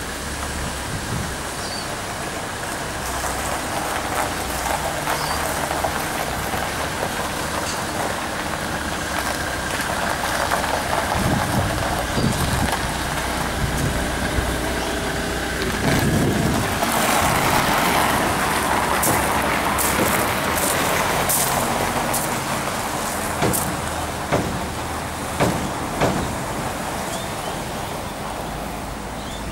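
Mustang 2044 skid steer's diesel engine idling steadily, with a louder noisy stretch about halfway through and a few sharp knocks near the end.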